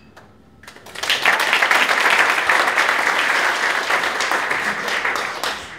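A room full of people applauding, a dense patter of many hands clapping. It starts about a second in, holds steady and stops just before the end.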